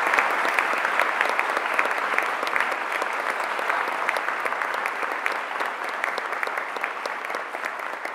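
Audience applauding, the clapping slowly fading as it thins out.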